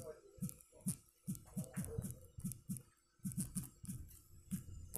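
Fingertip taps on a smartphone's touchscreen keyboard while typing a short phrase: a quick, uneven run of about fifteen soft taps, each a dull knock with a light click, pausing briefly about three seconds in.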